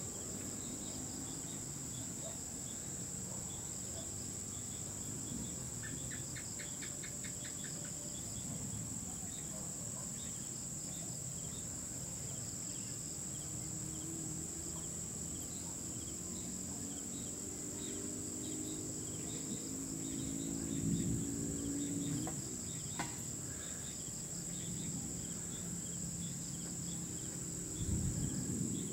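Steady high-pitched chorus of crickets, with low rumbles about two-thirds of the way through and again near the end.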